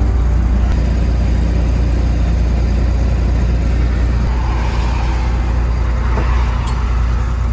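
Converted fire truck's engine running, a steady low drone with road and wind noise over it.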